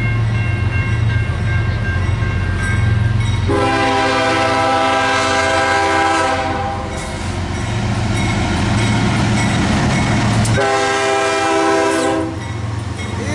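CSX diesel freight locomotive passing close with its engine rumbling, sounding its air horn twice: a long blast about three and a half seconds in, and a shorter one near the end.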